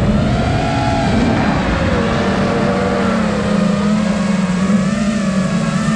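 Brushless motors and propellers of a Nazgul Evoque 5 FPV quadcopter whining in flight, a steady low whine with higher overtones that waver up and down with throttle, over a rush of wind noise, recorded on the drone's own microphone.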